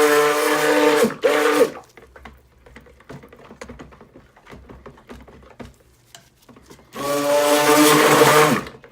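Handheld stick blender running in raw soap batter in pulses, with a steady motor whine: it runs for about a second, gives a short pulse, falls quiet with faint knocks for about five seconds, then runs again for under two seconds before cutting off. This is the blending of lye solution into oils to bring cold-process soap toward trace.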